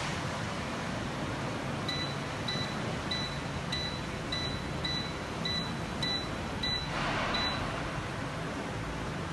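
Electric fireplace's control panel beeping: about ten short high beeps, evenly spaced a little over half a second apart, as its settings are stepped through, over a steady background hiss. A brief rush of noise comes near the last beeps.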